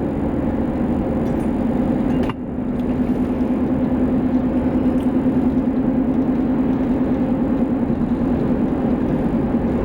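Steady car road and engine noise with a low drone, heard from inside a moving car. It breaks off briefly about two seconds in, then carries on unchanged.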